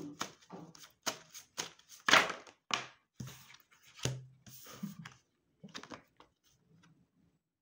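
A deck of oracle cards shuffled by hand: a quick run of taps and slaps for the first few seconds, then a few soft clicks as single cards are drawn and handled.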